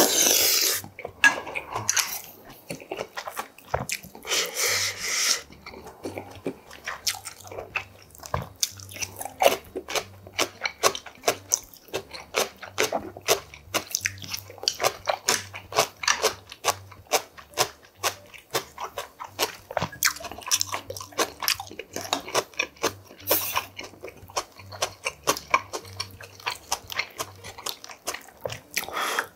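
Close-up mouth sounds of eating yukgaejang with rice: steady wet chewing and lip-smacking clicks in quick succession, broken by a few short slurps of broth from the spoon.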